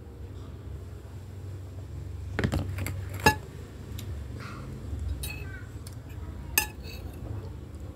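A glass mug set down on a table with a sharp ringing clink about three seconds in, then a metal spoon scraping and clinking against a plate of food, with one more sharp clink near the end.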